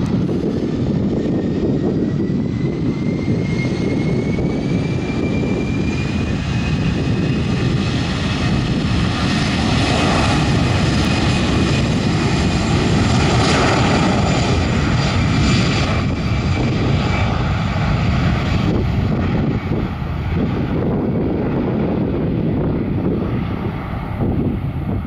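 Airbus A320-214 jet engines (CFM56) running as the airliner moves on the ground, with a thin whine rising in pitch over the first several seconds. The sound is loudest around the middle and eases off near the end.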